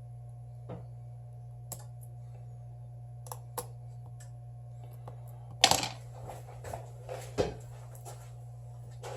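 Small hand tools clicking and tapping against a phone and a work surface as they are picked up and put down. The clicks are scattered, with a louder cluster of clacks a little before six seconds and another sharp clack near seven and a half seconds, over a steady low hum.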